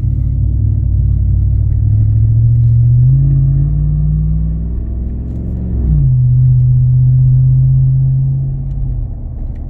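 Pickup truck's true-dual Carven R exhaust, dumped before the bumper, heard loud from inside the cab while driving. The drone rises in pitch as the truck accelerates, drops sharply with a gear change about six seconds in, holds steady, then eases off near the end.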